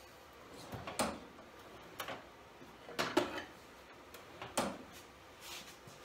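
Scattered knocks and clatter of tools being picked up and set down, several irregular thuds about a second apart, as a bigger mallet is hunted for among the tools.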